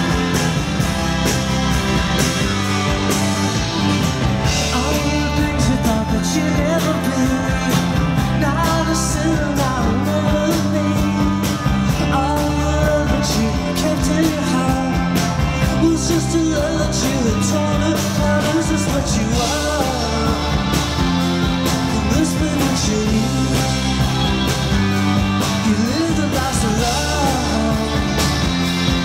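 Psychedelic rock band playing live: electric bass, electric guitar and drum kit, with a male singer's vocal over the top.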